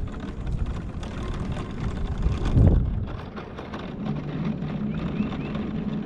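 Wind rumbling on the microphone, loudest about two and a half seconds in. From about four seconds in, a steady low engine hum joins it, and a crow caws three times near the end.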